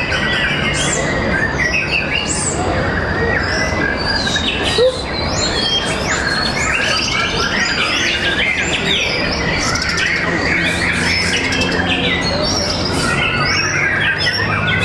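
Several white-rumped shamas (murai batu) singing at once in a songbird contest, a dense overlapping stream of loud whistles, trills and chatters with no pause, over a low steady hum.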